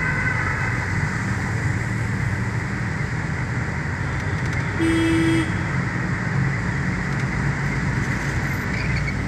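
Steady road and engine noise inside a moving car's cabin on a wet road, with a single short vehicle horn honk about five seconds in.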